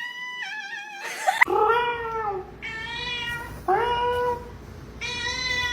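A domestic cat meowing again and again, about five drawn-out meows in a row, each rising then falling in pitch.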